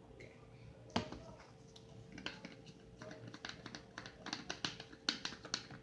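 Gloved hands opening and handling a package on the kitchen counter: a sharp click about a second in, then a quick run of small clicks and crinkles. A refrigerator hums steadily underneath.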